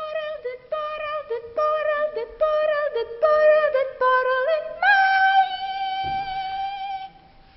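A puppet character's high singing voice: a run of short sung notes, then one long held note that stops near the end.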